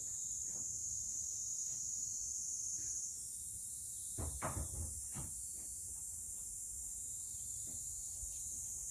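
Steady high-pitched hiss, with a few soft knocks and low thumps about four to five seconds in.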